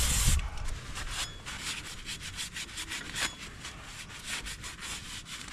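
A short hiss of aerosol brake cleaner that stops about half a second in, then a rag wiping the metal brake backing plate of an ATV drum brake in many short rubbing strokes.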